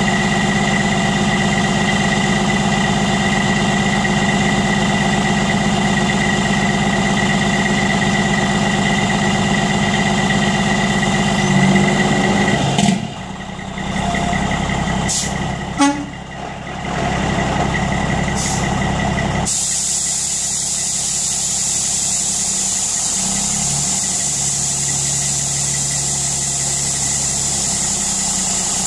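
Semi-truck diesel engine idling steadily. About halfway through the sound drops and shifts, with a few sharp clicks, then settles into a steady, lower hum.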